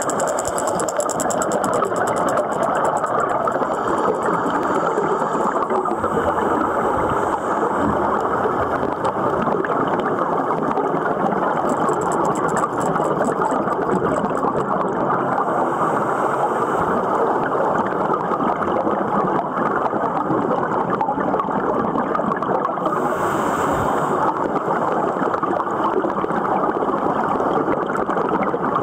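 Steady underwater rush on a scuba dive, with short bursts of bubbling from exhaled regulator air every several seconds.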